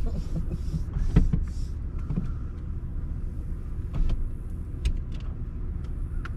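Steady low rumble inside a car creeping along, with a few sharp knocks and clicks scattered through it.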